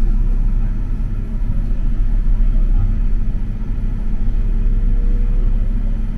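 Running noise of a Mitsubishi Crystal Mover rubber-tyred light rail car: a steady low rumble, with a faint whine that starts about halfway and slowly rises in pitch.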